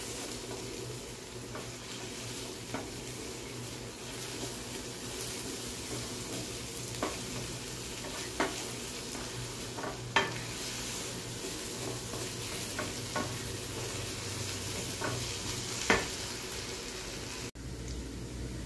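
Egg bhurji sizzling in a nonstick frying pan as a wooden spatula stirs and scrapes through it, with a few sharp taps of the spatula against the pan.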